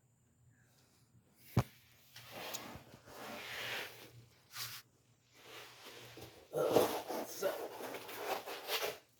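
Rubbing and scraping handling noises in irregular stretches, with one sharp click about one and a half seconds in.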